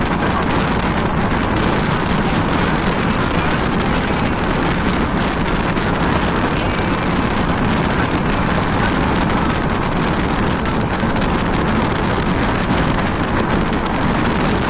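Train in motion: a steady, loud rumbling noise with no breaks.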